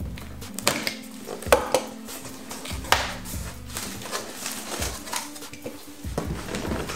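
A knife slitting the packing tape on a cardboard box, with sharp scrapes and clicks, loudest about one and a half and three seconds in, followed by the stiff cardboard flaps being pulled open and rustling.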